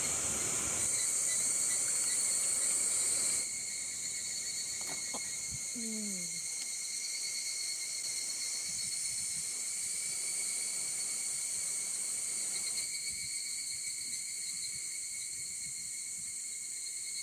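Summer insects shrilling in a steady chorus, a high buzzing drone held on one pitch that drops a little in level about three seconds in.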